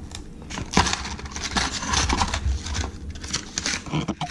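Packaging of a pack of fishing hooks being handled, crinkling and rustling with scattered clicks, the sharpest about a second in.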